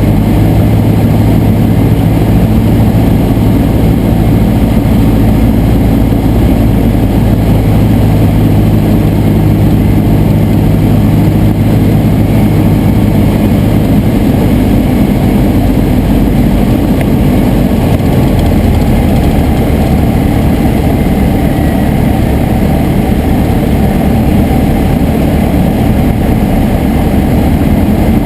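Piper Tri-Pacer's piston engine and propeller running steadily on the approach to land. The engine's note shifts partway through, as if the power setting changes.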